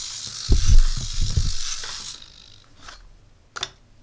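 Otto DIY robot's servos whirring as it moves, with a quick run of thumps from its 3D-printed plastic feet on the desk about half a second to a second and a half in. The whirring cuts off about two seconds in, and two short clicks follow.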